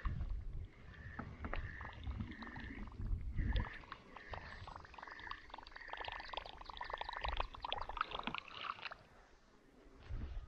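Kayak paddling: water splashing and dripping off the paddle blade in dense little patters, loudest from about four to nine seconds in, with a low rumble early on. A short high note repeats about twice a second through most of it.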